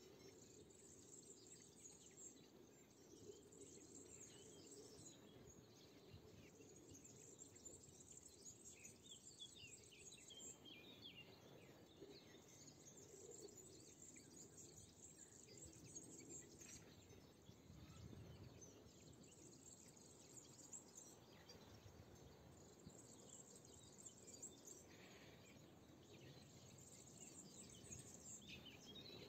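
Faint chorus of many small birds chirping in spring scrub. High trills come and go every few seconds over a soft, steady background noise.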